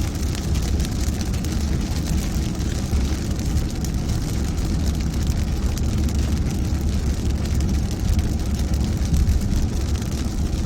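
A car driving in heavy rain: a steady low engine and road rumble with an even hiss of rain and wet tyres over it.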